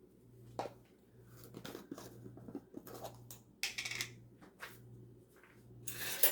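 Ingredients and containers being handled: scattered clicks and short rustles, with two louder rustling bursts about three and a half seconds in and near the end, over a faint steady low hum.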